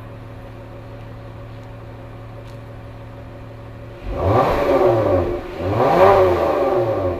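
Exhaust of a 2015 Dodge Journey R/T's 3.6-litre V6 idling steadily, then revved twice from about four seconds in, the pitch climbing and falling back to idle each time.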